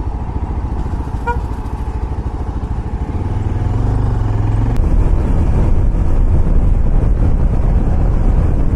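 Yezdi Adventure motorcycle's single-cylinder engine running on the move, growing louder from about three seconds in. A brief beep about a second in.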